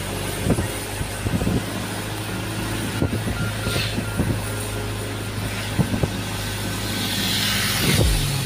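Toyota Dyna truck's diesel engine running at a steady cruise, heard from inside the cab as a low hum with road and tyre noise. Irregular low knocks and rattles come from the cab over bumps, and a hiss swells briefly near the end.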